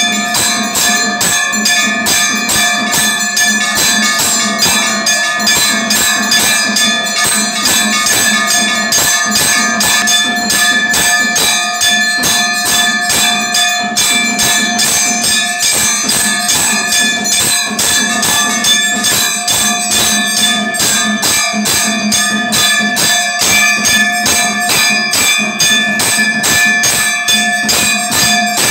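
Temple bells ringing in rapid, even strokes with a steady ringing hum, the continuous bell-ringing that accompanies the arati lamp offering.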